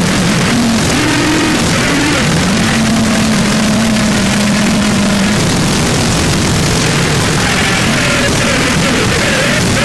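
Harsh noise music: a loud, unbroken wall of distorted static with wavering pitched tones sliding up and down beneath it, one held steady for about three seconds just after the start.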